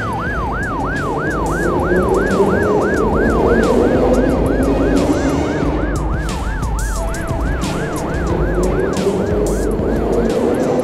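Cartoon emergency siren on a medical-service train, a fast wail that slides down and back up about three or four times a second. A vehicle rumble runs underneath.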